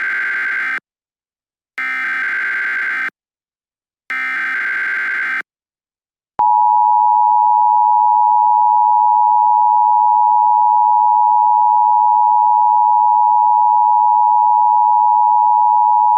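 Emergency Alert System (EAS) tones: three short bursts of warbling digital data tones (the SAME header), then the long, steady two-tone attention signal, held for about ten seconds before it cuts off. This is the standard sequence that announces an emergency alert message.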